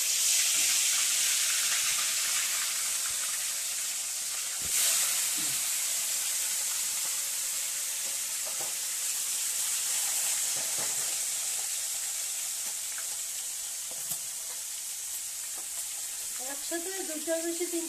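Turmeric-and-salt-rubbed fish steaks sizzling in hot oil in a steel kadai, the sizzle starting suddenly and loud as the fish goes in, then slowly dying down as it fries. A brief louder flare-up comes about five seconds in, and a spatula scrapes the pan near the end.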